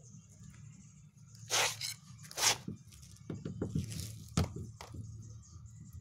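Handling noises: two short scrapes, then a run of light knocks and clicks with one sharper click about four and a half seconds in.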